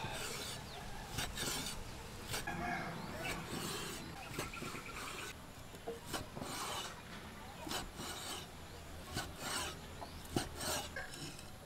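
A cleaver slicing a grilled beef steak into strips on a wooden chopping board: a scraping cut with each stroke and a knock of the blade on the board, about a dozen cuts at an uneven pace.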